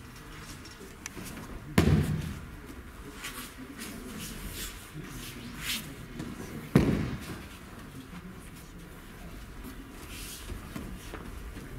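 Two heavy thuds of aikido breakfalls as thrown partners hit the tatami mats, about five seconds apart, each with a short echo in the hall. Fainter scuffs between them.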